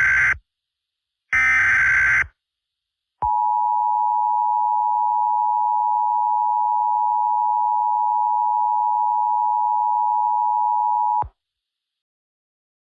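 Opening of an Emergency Alert System message. The last two of the SAME header's digital data bursts, each about a second long, are followed after a short gap by the EAS two-tone attention signal (853 and 960 Hz together), which holds steady for about eight seconds and then cuts off. The tones announce that an emergency alert is about to be read.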